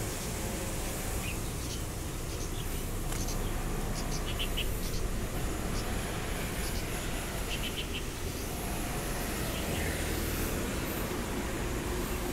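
Quiet street ambience: a steady low rumble of distant traffic, with a few brief clusters of small high chirps, twice near the middle.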